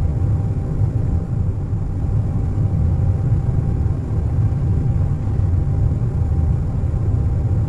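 Airliner cabin noise at cruise: a steady low rumble with a faint steady tone above it.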